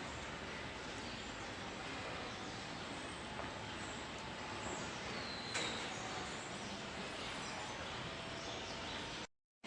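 Steady background noise inside a dairy cow barn, with a short high chirp and a click about five and a half seconds in. The sound cuts out abruptly near the end.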